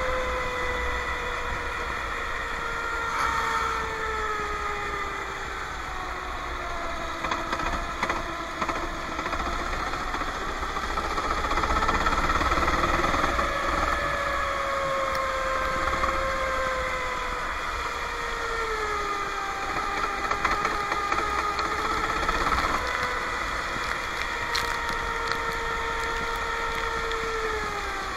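Go-kart engine running at low, moderate revs, its pitch easing down and picking up again several times as the kart rolls slowly, with a few faint clicks.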